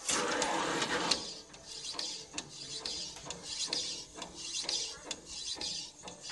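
Edible-ink coffee printer printing onto a cup of coffee. A loud burst of noise in the first second, then the print head carriage sweeping back and forth, rising and falling about twice a second with sharp clicks.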